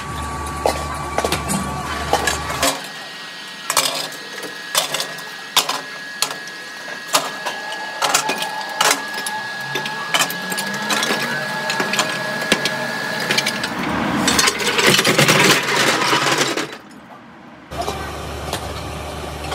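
Repeated metal clanking of broken cast-iron scrap pieces dropped into a steel hopper, with a steady thin whine through the middle.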